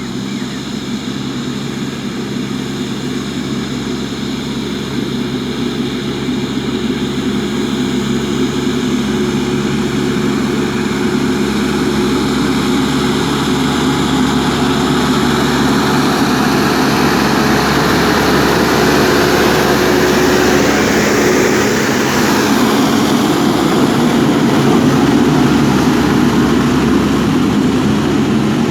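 Quadcopter drone's propellers whining steadily, growing slowly louder, with a heavy diesel engine running underneath.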